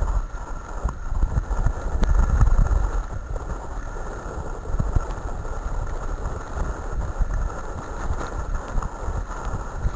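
Wind buffeting the microphone over a steady low rumble with scattered light rattles: a wheeled dog rig rolling along a dirt track behind a running sled-dog team.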